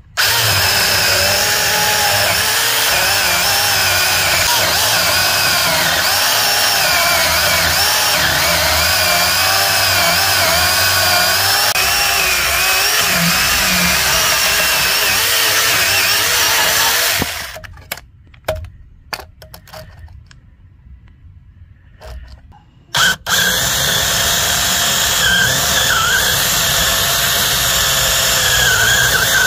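Alloyman 20 V cordless mini chainsaw cutting through a hard, dense log, its electric motor and chain whining with a pitch that wavers as the load changes. It stops about halfway through, leaving a few clicks, and starts cutting again some six seconds later.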